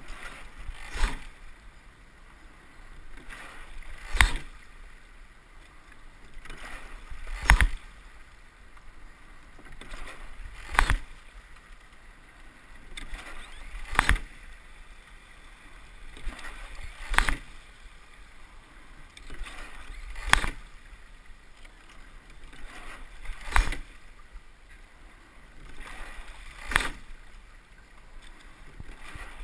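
Rowing boat under way at a steady stroke rate. A sharp clunk about every three seconds as the oars turn in their oarlocks at each stroke, nine in all. Between them comes a swelling rush of water along the hull.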